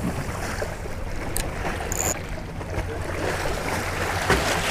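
Sea waves washing against jetty rocks, with wind buffeting the microphone. Two faint clicks and a brief high squeak come about a second and a half and two seconds in.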